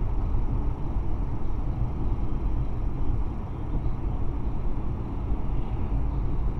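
Steady rumble of a car driving, heard inside the cabin: low tyre and engine noise with no changes.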